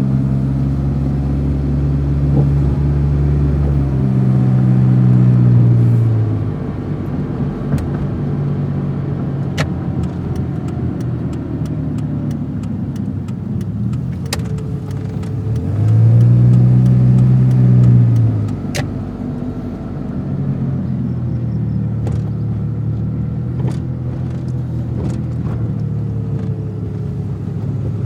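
Car engine running and revved twice, about four seconds in and again about sixteen seconds in, the pitch rising and falling back each time. A few sharp clicks are heard in between.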